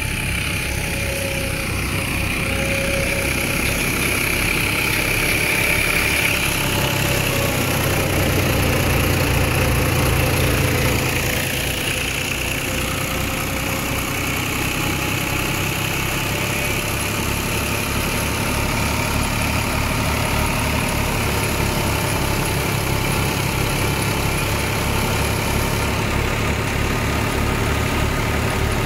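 New Holland 480 tractor's diesel engine running steadily with an even low throb while driving a thresher. It swells a little louder about eight seconds in, then settles back.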